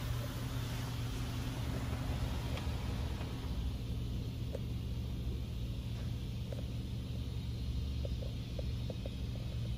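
Laserwash G5 touchless car wash spraying water and soap over the car, heard from inside the cabin as a hiss over a steady low hum. The spray hiss eases off about three and a half seconds in, leaving the hum and a few faint ticks.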